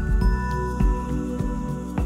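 Instrumental background music: held notes over a soft, regular low pulse.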